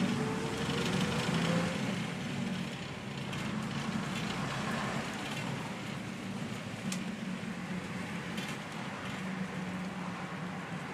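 Routemaster double-decker bus's diesel engine heard from the upper deck, rising in pitch as it accelerates over the first second and a half, then running at a steady drone as the bus cruises, with a few light rattles.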